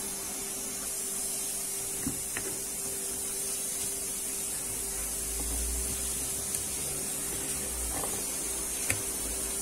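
Steady background hiss with a faint even hum, and a few faint soft taps as raw onion slices are laid into an oiled glass baking dish.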